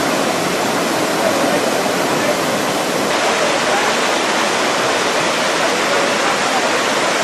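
Waterfall pouring down a rock face and splashing onto the rocks below: a steady rush of water.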